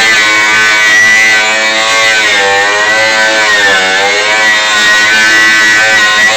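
Electric angle grinder running at speed against a car's metal surface, grinding it down toward bare metal; its whine dips in pitch twice, about two and a half and four seconds in, as it is pressed into the work.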